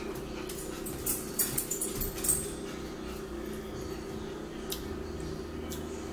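Forks clicking against dinner plates, a cluster of light clicks about one to two and a half seconds in and a few fainter ones later, over a steady low hum.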